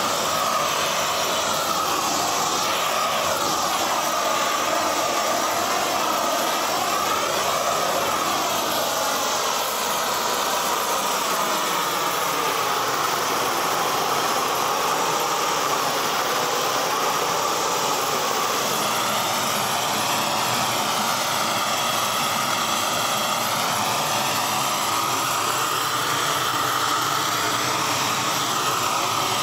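Hand-held propane torch with a long wand, fed from a gas cylinder, burning steadily with a jet-like rush as its flame chars the surface of timber posts. The tone of the rush sweeps slowly up and down as the flame is moved along the wood.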